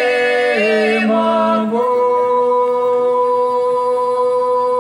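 Unaccompanied singing: sung phrases for the first two seconds, then a long held note from about two seconds in.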